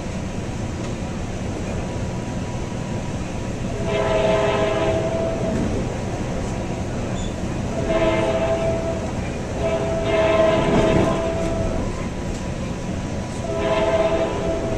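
Coaster commuter train's horn sounding four separate blasts, each a second or more long, the third the longest, heard from inside a passenger coach over the steady rumble of the train running on the rails.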